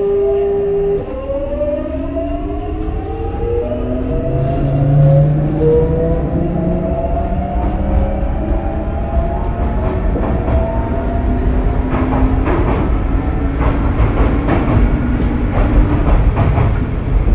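Hitachi GTO-VVVF inverter and traction motors of a Sotetsu 8000 series train accelerating. A steady whine lasts about a second, then gives way to several whining tones that climb in pitch in steps. In the second half, wheel-on-rail rumble and clicks over rail joints grow louder.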